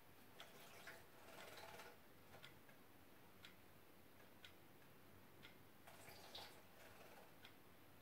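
Faint splashing as a Gloster canary bathes in a water dish, in short bursts about a second in and again about six seconds in. A clock ticks once a second throughout.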